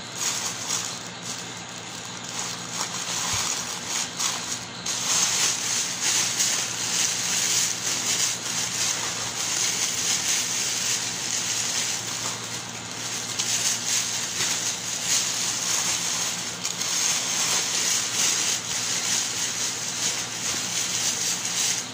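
Plastic wrap or a plastic bag crinkling and rustling continuously as hands wrap it around food and twist it closed.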